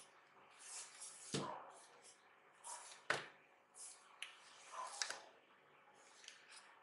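Faint handling noise of a cardboard phone box turned in the hands: a series of brief scrapes and rustles, with two sharper knocks about a second and a half and three seconds in.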